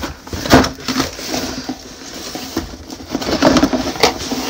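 A large cardboard game box being flipped over and handled, with rustling, scraping and a few sharp knocks as it and its plastic contents move.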